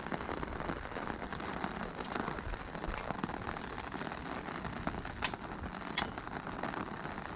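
Rain falling on an umbrella held over the microphone: a steady dense crackle of drops, with a few sharper taps about five and six seconds in.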